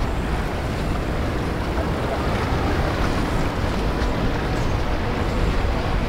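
Steady wind blowing across the camera microphone, a constant low rumbling noise.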